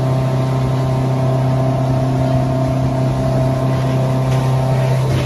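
Motorboat engine running steadily at cruising speed: a constant low drone that does not change pitch, with water rushing from the wake.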